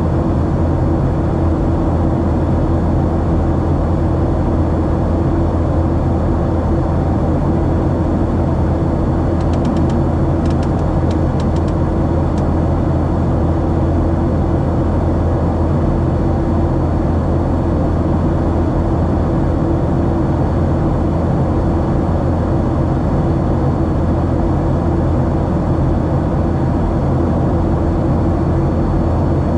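Steady cabin drone of a Boeing 737-700 in flight: its CFM56-7B turbofan engines and the airflow over the fuselage, heard inside the cabin, with a low hum under it and a few faint ticks about ten seconds in.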